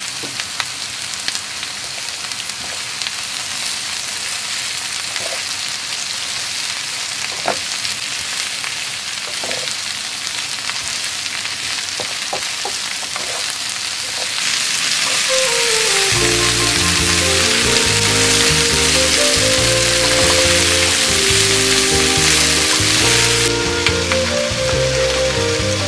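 Sliced red bell peppers and onion sizzling as they fry in oil in a pan, with a few clicks from a utensil stirring them. About two-thirds of the way in, background music with a moving melody comes in over the sizzle.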